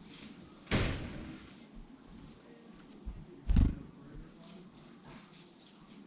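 Two loud, sudden whooshes, under a second in and about three and a half seconds in, the second one deeper, as a black-capped chickadee flutters its wings on and off a wooden platform feeder close to the microphone. Near the end comes a quick run of four high, thin bird notes.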